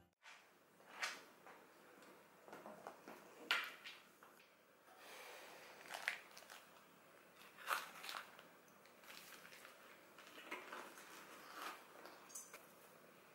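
Faint handling sounds of small everyday items being picked up and set down on a cloth-covered table: short soft knocks and rustles every second or two, with a backpack being rummaged near the end.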